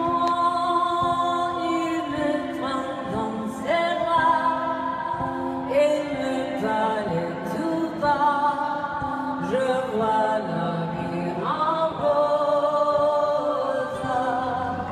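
Live concert music: a female singer holding long notes over sustained chords.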